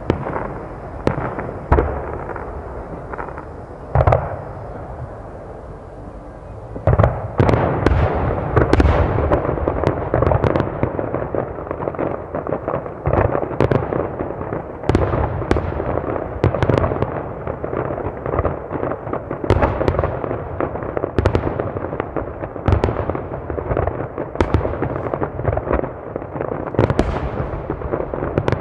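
Aerial firework shells bursting: a few separate booms for the first several seconds, then from about seven seconds in a dense barrage of rapid, overlapping bangs as many shells burst together.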